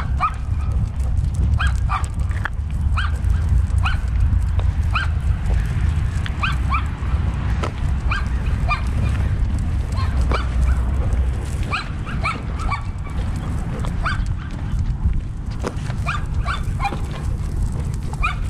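Labrador retriever walking, picked up by a camera harnessed to its back: a steady low rumble from the dog's body and steps, with short, rising high squeaks several times a second.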